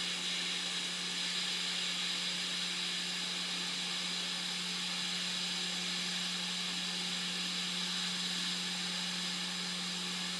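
Hot air rework station blowing a steady hiss of hot air onto a freshly placed touch IC, reflowing its solder so the chip seats on the phone's logic board. A steady low hum runs underneath.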